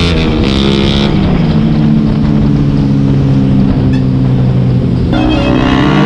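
Suzuki GSX-S750's inline-four engine heard from the saddle while riding: the revs fall in the first second, hold steady for a few seconds, then climb smoothly again about five seconds in as the bike accelerates.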